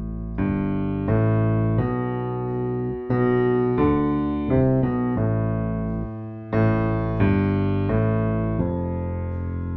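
Piano music, with chords struck about once a second and left to ring.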